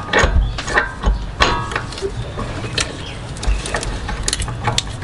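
Irregular metallic clicks and clinks, some with a short ring, from a wrench on an engine mount bolt as the bolt is fitted and turned.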